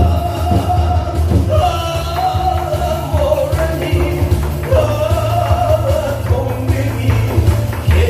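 A singer performing over a loud backing track with a steady bass beat, the melody moving in long wavering phrases.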